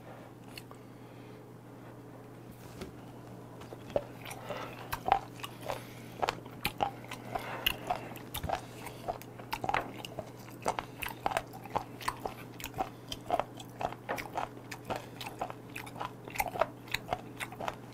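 A person chewing close to the microphone, with a run of short crunchy clicks about two to three a second that starts a few seconds in. A steady low hum runs underneath.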